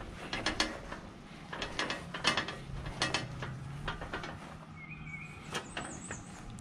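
Empty metal hand truck rattling and clicking as it is wheeled along, in irregular knocks about every half second to second.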